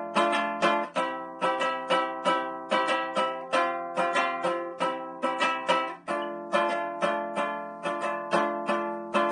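Handmade walnut Viking lyre strummed in a steady rhythm, about three strokes a second, its strings ringing together as a chord that fades between strokes.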